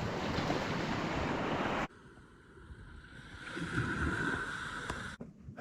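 Steady rushing of wind and small lake waves, which cuts off abruptly about two seconds in. A quieter stretch of the same outdoor noise follows and cuts off sharply near the end.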